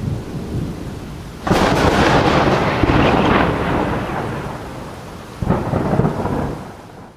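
Thunder: a low rumble, then a loud crack about one and a half seconds in that rolls on and dies away over a few seconds, and a second, shorter peal near the end.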